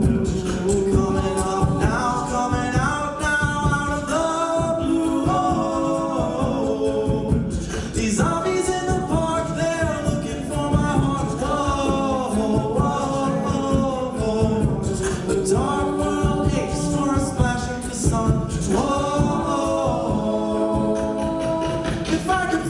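A co-ed a cappella group singing a pop-rock song: several voices in harmony with no instruments.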